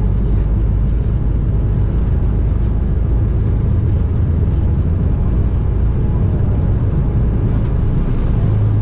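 Steady low rumble of an Embraer E190's cabin in flight: its turbofan engines and the airflow past the fuselage, heard from a passenger seat.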